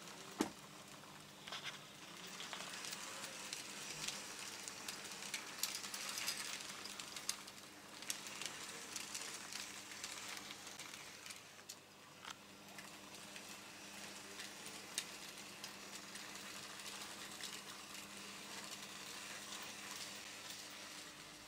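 Vintage Märklin H0 model electric locomotives running on M-track: a faint, steady crackling hiss with scattered sharp clicks as wheels and pickup shoe roll over the track, over a steady low hum.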